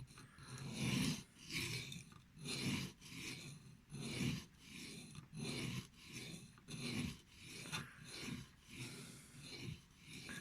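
Knife blade scraped back and forth on an oiled Arkansas sharpening stone, about one and a half gritty strokes a second. The rough, gritty sound is one he thinks may be from the stone being new.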